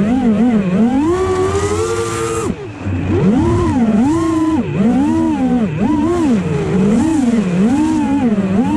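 FPV racing quadcopter's brushless motors and propellers whining, heard from on board, the pitch rising and falling with each throttle change. The pitch climbs and holds high for about two seconds, drops sharply as the throttle is cut, then surges and eases again roughly once a second.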